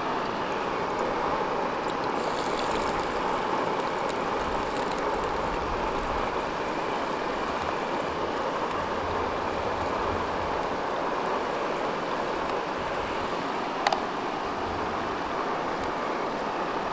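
Steady rushing hiss of a portable gas camping stove burning in strong wind, with one short light clink about 14 seconds in.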